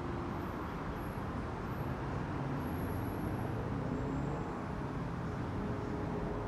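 Steady vehicle and street-traffic noise: an even low rumble with no sudden changes.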